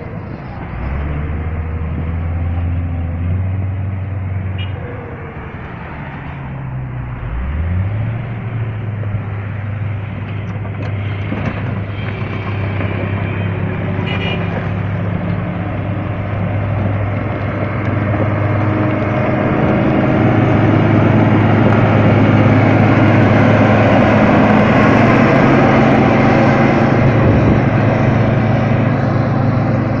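Caterpillar motor grader's diesel engine running as the machine pushes gravel with its blade. The revs rise sharply about seven seconds in, then the engine runs steadily, growing louder in the second half.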